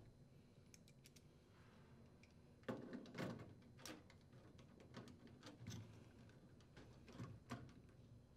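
Faint clicks and scrapes of a screwdriver turning screws into the sheet-metal mounting bracket of a furnace drain trap: a scattered run of small knocks starting a little under three seconds in.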